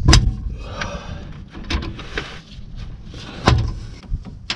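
Sharp metallic clicks and clunks of a wrench and 14 mm hex bit being fitted to and worked on a rear differential fill plug, with the loudest knock about three and a half seconds in.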